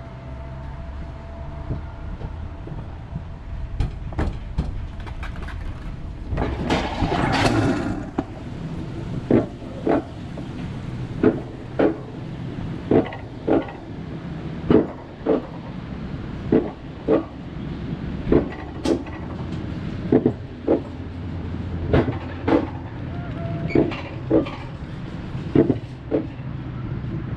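Alpine coaster sled running on its steel track: a steady rumble, a brief loud rushing noise about seven seconds in, then regular paired clacks, two about half a second apart and the pairs coming about every two seconds, as the sled's wheels pass over the rail joints at an even speed.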